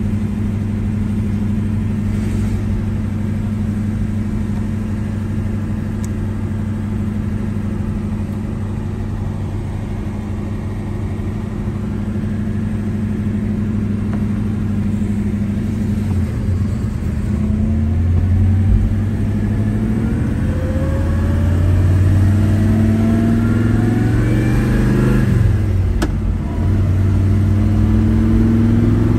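1970 Chevelle SS454 LS6's 454 big-block V8, heard from inside the cabin, running steadily at low speed for about the first half. It then pulls up through the revs, drops at an upshift about 25 seconds in, and climbs again near the end.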